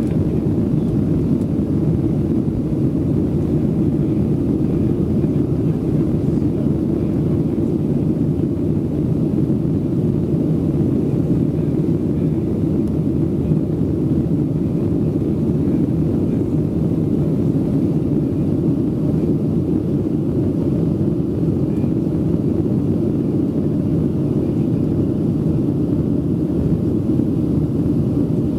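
Boeing 737-700 cabin noise heard over the wing during the takeoff roll, liftoff and initial climb, with its CFM56-7B engines at takeoff thrust. It is a steady, deep engine and airflow noise that holds an even level.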